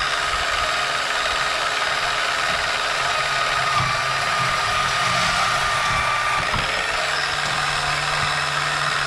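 Bauer 10-amp deep-cut variable-speed portable band saw running and cutting through a PVC pipe. The sound shifts about six and a half seconds in, a thin high whine giving way to a steady low hum as the blade runs free.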